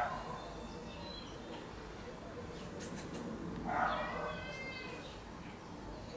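A domestic cat gives one drawn-out meow about four seconds in, against faint outdoor background with a few small high chirps.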